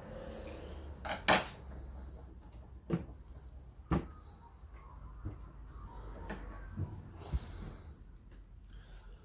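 Handling clunks and knocks from the parts of a vintage electric desk fan being turned over and set down during teardown. The loudest knock comes about a second in, with a handful of sharper knocks every second or so after and a short rustle near the end.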